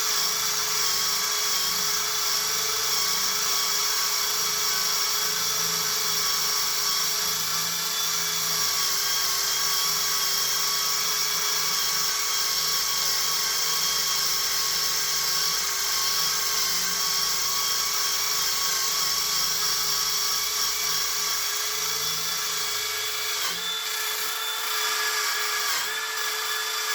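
Handheld power tool spinning a wire wheel against rusty jointer parts to strip the rust, giving a steady motor whine. The pitch sags briefly a couple of times near the end as the wheel is pressed harder.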